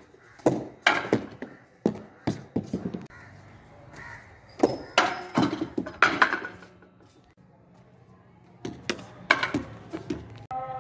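A hard cricket ball knocking sharply on a tiled rooftop. There is a quick run of knocks in the first three seconds, another cluster around five to six seconds in, and a few more near the end.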